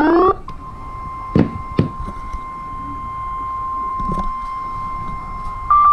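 NOAA Weather Radio warning alarm tone, a steady single tone near 1 kHz, starting about half a second in. It signals that a warning broadcast is about to follow. At the very start a rising chirp cuts off, two sharp knocks come about a second and a half in, and a short, slightly higher beep sounds near the end.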